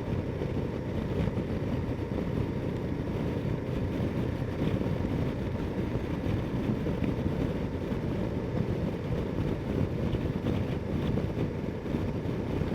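Steady motorcycle riding noise: wind rushing over the helmet microphone above the Ducati Multistrada 1260 S's V-twin engine running at an even pace.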